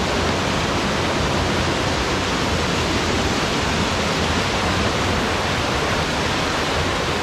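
Steady rush of a fast upstream river flowing over its bed, an even noise with no breaks.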